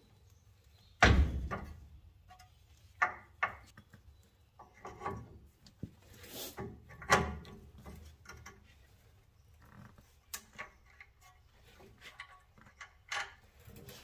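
Irregular knocks, clicks and clunks of metal steering parts being handled and fitted together as a tie rod end and its adjusting sleeve go back onto the steering linkage. A heavier thunk comes about a second in.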